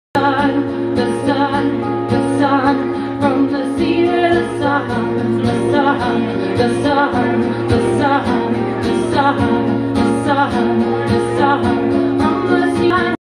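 Live acoustic music: a woman singing while strumming an acoustic guitar, with a second guitar alongside. The sound cuts off abruptly just before the end.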